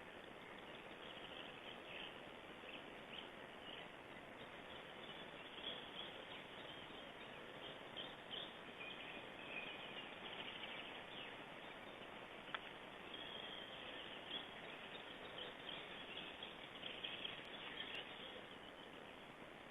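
Faint forest ambience through a nest-camera microphone: a steady hiss with small songbirds singing and chirping, and a single sharp click a little past halfway.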